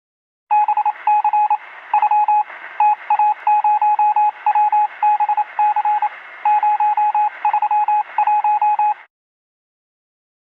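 Intro sound effect of an electronic beep keyed on and off in quick runs of short pips, in the manner of radio Morse code, over a steady radio hiss. The sound is thin, like it is heard through a radio speaker. It starts about half a second in and cuts off near the end.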